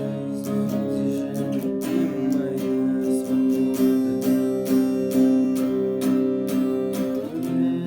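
Acoustic guitar strummed in a steady rhythm of chords, with a chord change near the end.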